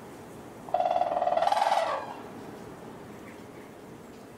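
Gray wolf giving one loud, drawn-out whining call of about a second, steady in pitch with a slight rise before it breaks off, during rough play with another wolf.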